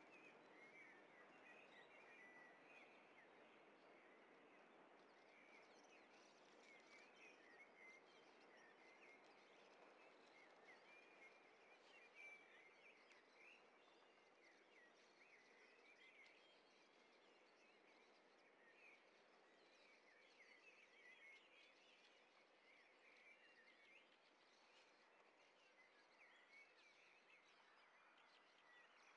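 Near silence: faint outdoor background noise with scattered faint bird chirps throughout.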